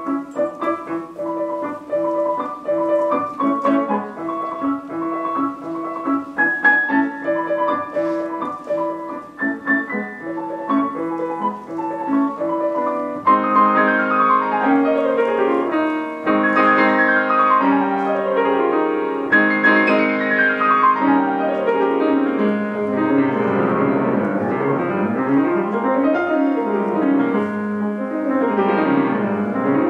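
Solo piano playing: a repeated, even figure at first, then from about thirteen seconds in a louder passage of fast runs sweeping up and down the keyboard.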